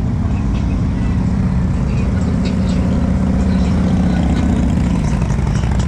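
Motorcycle engines running as bikes ride past on the street, a steady low engine note.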